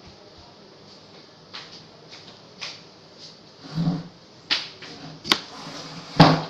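Kitchen knife cutting a peeled pineapple on a cutting board: irregular slicing strokes and knocks of the blade on the board, sparse at first and more frequent from about four seconds in, the loudest knock just before the end.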